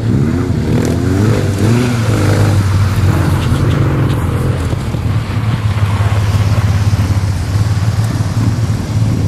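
Motorcycle engines revving hard and accelerating as sidecar outfits launch down a gravel strip, their pitch rising and falling over the first few seconds. A three-wheeled motorcycle then revs with its rear wheel spinning on the gravel, over a steady low engine note.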